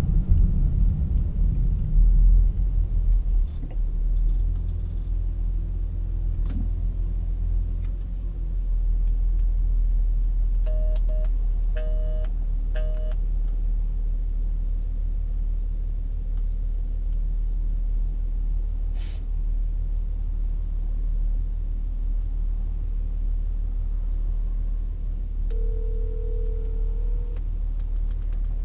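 Steady low rumble inside a stopped car's cabin, with a phone call being placed: a quick run of three electronic beeps about eleven seconds in, then a single two-second ringback tone near the end.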